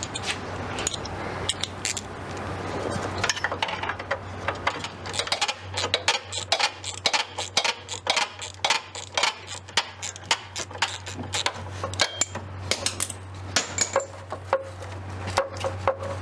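Irregular metallic clinks, taps and knocks, like hand tools working on car parts, over a steady low hum.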